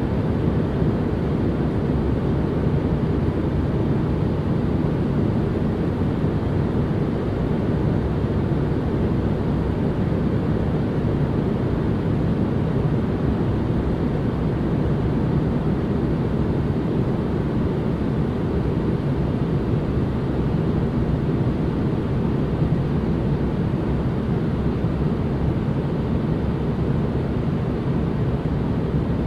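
Steady, unchanging white-noise ambience: a continuous deep rushing noise, heaviest in the low range and soft in the highs.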